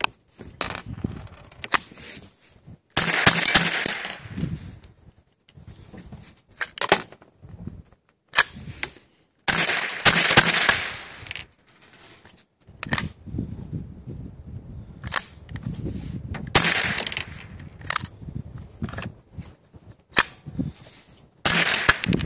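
A scoped Ruger 10/22 semi-automatic .22 rifle firing single shots a few seconds apart, each a sharp crack. Three of the shots, about 3, 10 and 16 seconds in, are followed by a second or so of rushing noise.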